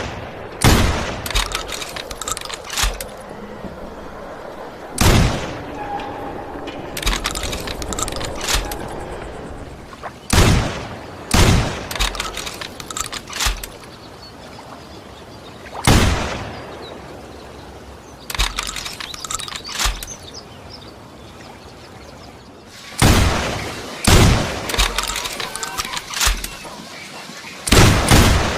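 Sawn-off shotgun firing about eight single shots spread over the clip, twice in pairs about a second apart, each shot dying away in a short ringing tail. Small metallic clicks and rattles come between the shots.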